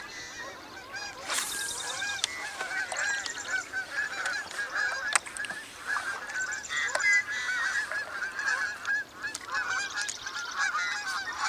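A flock of geese honking as it flies over, many overlapping calls one after another.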